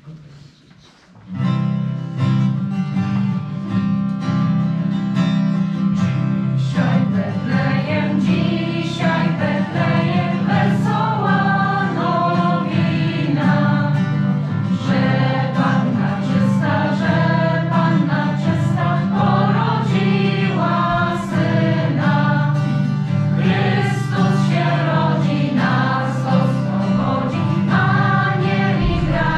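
A choir of young voices singing, accompanied by acoustic guitar; the music starts about a second in.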